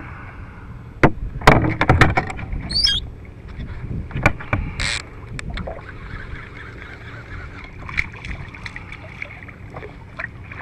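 Knocks and clicks of a fishing rod and reel being handled on a plastic fishing kayak, loudest in a quick cluster early on, with scattered clicks after. A short high wavering chirp and a brief hiss come around the middle.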